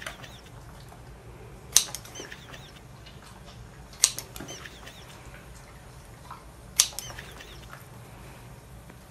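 Scissors snipping through a sausage, three sharp snips two to three seconds apart, over a faint low hum.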